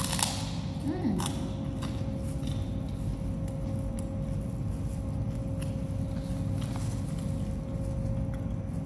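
A person eating: a few sharp clicks in the first second and a half, then faint irregular chewing ticks, over a steady low hum with a faint steady tone.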